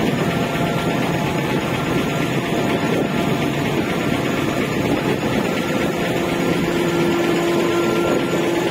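Ro-ro ferry's engines and deck machinery running steadily during a docking manoeuvre, a constant mechanical drone, with a steady hum joining in about six seconds in.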